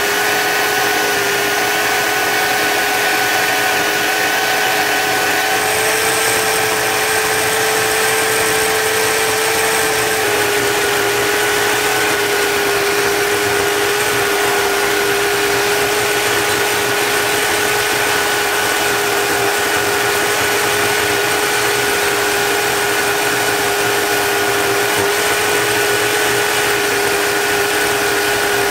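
Belt sander running steadily with a steel knife blade held against the moving belt: a steady motor whine over a grinding hiss. The whine sits a little higher for a few seconds, then drops slightly and steadies about ten seconds in.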